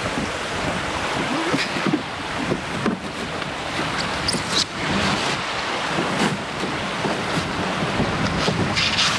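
Water splashing and sloshing around a canoe, with wind buffeting the microphone and a few sharp knocks scattered through.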